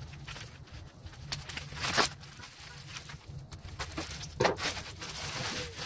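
Black plastic mailer wrap being cut with scissors and pulled open, a continuous plastic crinkling with two louder crackling rips, about two seconds in and again past four seconds.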